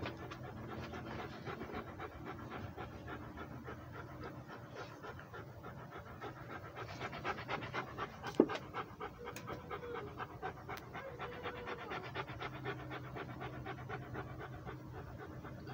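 Rhodesian ridgeback panting rapidly with its mouth open, several breaths a second, close to the microphone. A single sharp click a little past halfway is the loudest sound.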